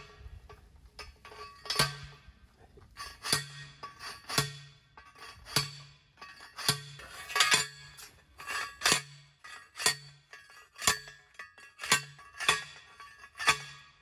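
Manual post driver slamming down onto a steel T-post, about one strike a second, each strike a ringing metallic clang, with background music underneath.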